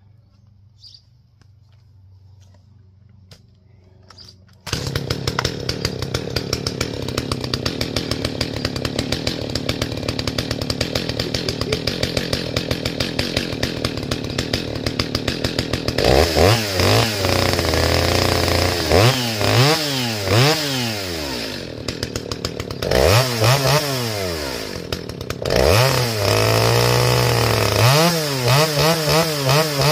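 Stihl 029 chainsaw with a muffler mod catching about four and a half seconds in after being pull-started. It idles steadily, then from about halfway through is revved up and down repeatedly, with one longer spell at high revs near the end.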